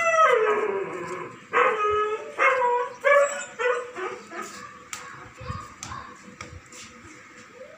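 A German Shepherd Dog vocalizing: a long call falling in pitch at the start, then a quick run of shorter pitched calls about one and a half to four seconds in, trailing off fainter toward the end.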